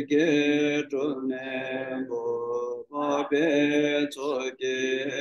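A Tibetan Buddhist lama chanting a liturgy solo in a sustained, melodic voice, in long phrases broken by short pauses about a second in and about three seconds in.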